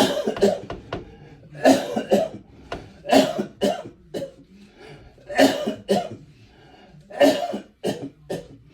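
A man coughing repeatedly, short coughs mostly in pairs, a new pair every second or two.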